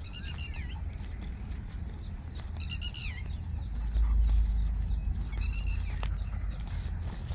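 Three short, high-pitched animal calls that fall in pitch, a couple of seconds apart, over a steady low rumble of wind and handling on the microphone that swells loudly about four seconds in.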